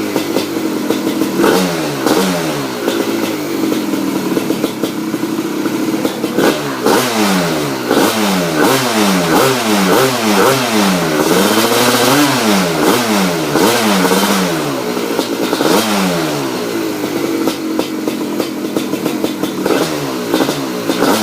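1993 Suzuki RM250 single-cylinder two-stroke engine through a Pro Circuit 304 exhaust, running steadily, then revved up and dropped back again and again from about a second and a half in, in quick rises and falls of pitch.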